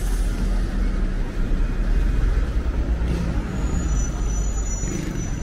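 Street traffic noise with a large vehicle's engine rumbling close by. A thin, high, steady double tone comes in after about three and a half seconds.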